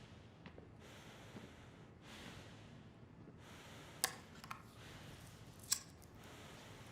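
Soft breathing close to the microphone, with two sharp clicks about four and five and a half seconds in.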